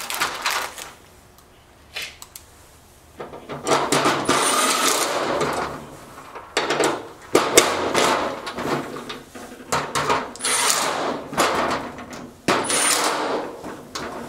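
Screws and metal fittings being handled and worked into a steel cabinet panel: irregular clattering and scraping in several stretches of a second or more, after a quieter first few seconds.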